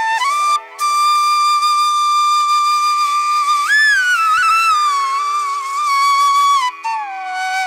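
Background music: a solo flute plays a slow melody over a steady drone, holding one long note and then bending up and sliding back down around the middle.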